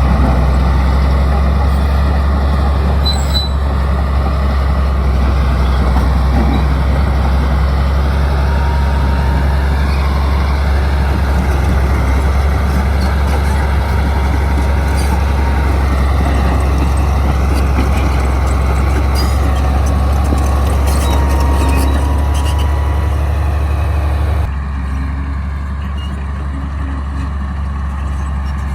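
Heavy bulldozer's diesel engine running steadily under load with a deep rumble and some faint clinking on top. The sound drops suddenly to a lower level about 24 seconds in.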